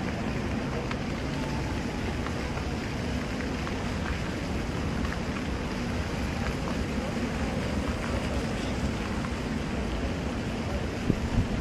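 Outdoor street ambience in an open square: a steady low rumble of wind on the microphone with faint voices of people nearby. A few sharp knocks near the end.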